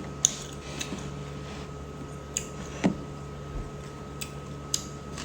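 Eating sounds: a few scattered short, sharp clicks of chewing and eating over a steady low hum.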